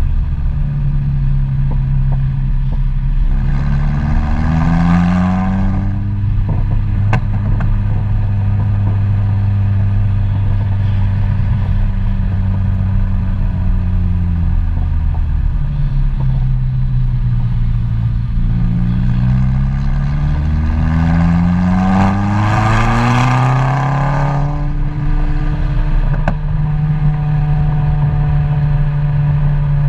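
A road vehicle's engine running under way, pulling up in pitch under acceleration twice, about three seconds in and again from about eighteen seconds in, and easing back down in between. At the top of each climb a harsher, hissier note rises above the engine's hum.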